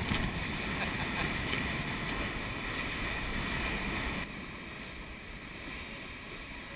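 Water rushing and churning along a sailing yacht's hull as it surfs at hull speed, about 9 to 10 knots, with wind buffeting the microphone. About four seconds in, the sound drops abruptly to a quieter steady rush of wind and water.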